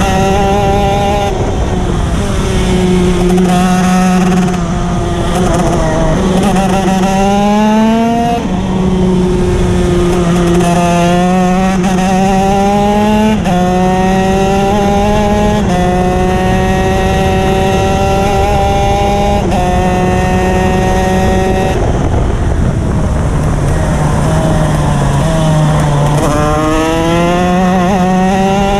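Racing kart engine running hard at speed, its note climbing repeatedly as the kart accelerates and dropping back between the climbs, with wind rushing over the onboard microphone.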